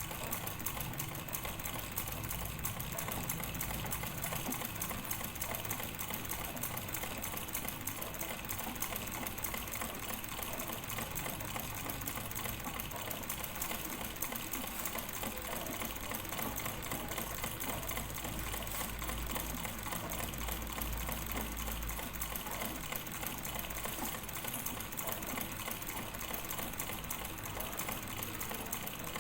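Sewing machine running continuously at a steady speed, its needle mechanism clattering in a fast, even rhythm.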